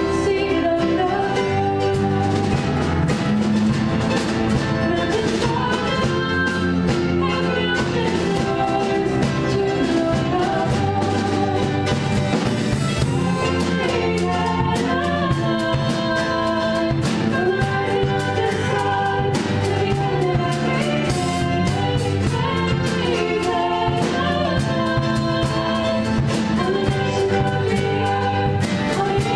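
A small live band playing a worship song, a woman singing lead over acoustic guitar, cello, a small strummed stringed instrument and drum kit with cymbals. The beat is steady and the singing carries on throughout.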